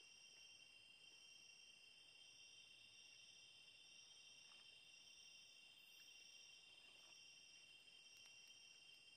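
Faint night chorus of tropical forest insects: several steady high-pitched trills at different pitches, one of them pulsing in phrases about a second long. A few faint ticks come through.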